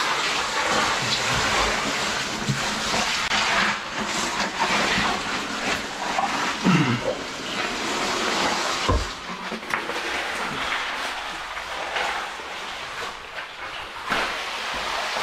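Close scraping, rustling and knocking of a caver clambering down through a rock passage: oversuit and boots rubbing and bumping on rock and gravel, with a heavier bump about nine seconds in.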